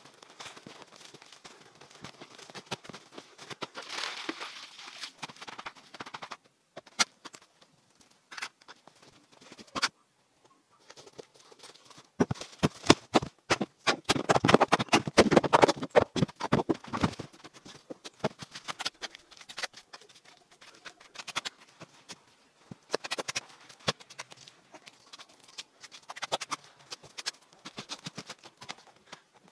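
Shovel digging into grassy soil: repeated chops and scrapes of the blade with loose earth falling. A dense run of louder knocks and scrapes fills the middle.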